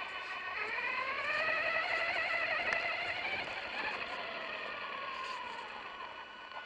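Electric motor of an RC truck whining while driving. The pitch rises sharply about half a second in as it speeds up, then slowly falls and fades toward the end as it slows.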